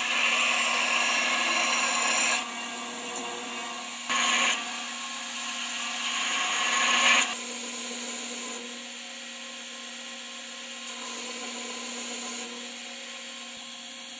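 Belt grinder running while a forged 1084 steel knife blade is pressed against the belt in several passes. The grinding hiss comes and goes, loudest in the first half, and the motor hums steadily between passes.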